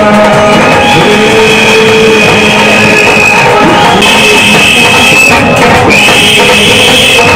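Loud music with drums played over loudspeakers, its high lead line holding long steady notes three times.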